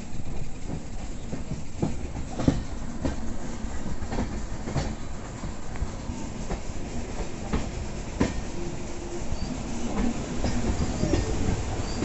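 Passenger train running along the track: a steady rumble with irregular sharp clacks from the wheels passing over rail joints, heard through an open coach window.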